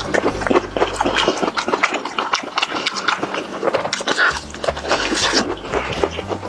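Close-up chewing and crunching of crispy fried chicken: dense, irregular crackling clicks, over background music.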